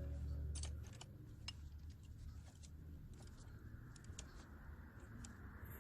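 Faint, irregular clicks and light metal taps of hand tools while the timing belt tensioner pulley bolt is fitted, with a low hum during the first second.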